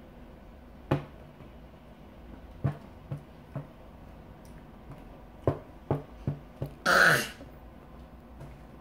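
A baby's hands slapping a plastic high-chair tray: a string of short, uneven knocks. Just before the end comes a short breathy exclamation from the baby, the loudest sound.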